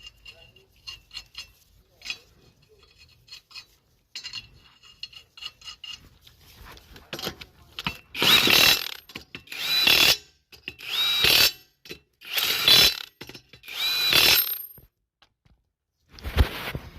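Cordless impact wrench on the wheel's lug nuts, five loud bursts about a second and a half apart, each with a rising whine, and one more short burst near the end. Before them, a run of light metallic clicks and rattles.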